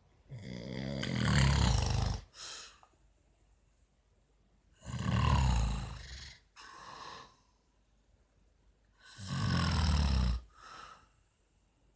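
A man snoring: three long, loud snores about four and a half seconds apart, each followed by a short, softer breath.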